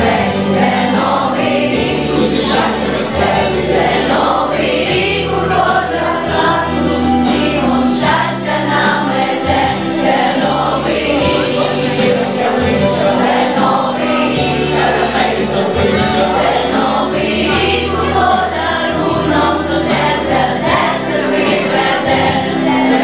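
Children's choir singing a New Year song over a recorded backing track with a steady beat.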